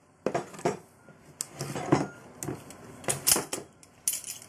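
Metal clamps clanking and rattling as they are handled and taken off a glued wooden jig: a string of irregular knocks and jingles.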